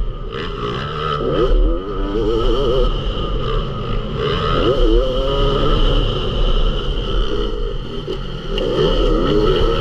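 Yamaha YZ 250 motocross bike engine heard from a camera on the bike, revving up and down as the rider works the throttle over the dirt track, its pitch rising and falling in quick waves.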